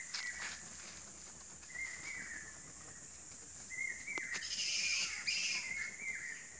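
A colony of bats roosting in the trees, calling with repeated short squawks that drop in pitch, coming thicker and overlapping in the second half. A steady high insect drone runs underneath.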